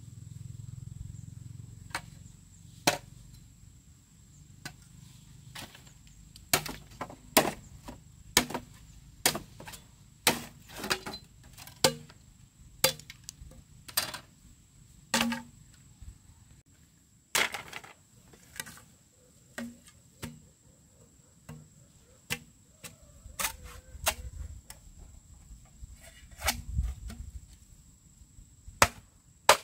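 A blade chopping: about twenty sharp strikes at an uneven pace, mostly about a second apart.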